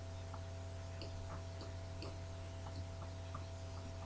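Faint, unevenly spaced ticks a few times a second from a stylus tapping and stroking a pen tablet while writing, over a steady low electrical hum.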